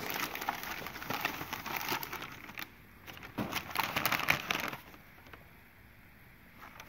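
Newspaper crinkling and rustling as it is unwrapped by hand, in two spells: one of about two and a half seconds, then a shorter one before a quiet pause near the end.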